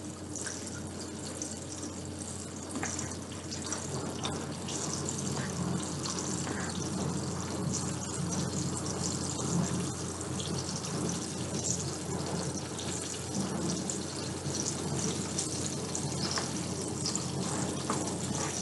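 Breaded chicken fried steak frying in hot oil: a steady sizzle with scattered small pops.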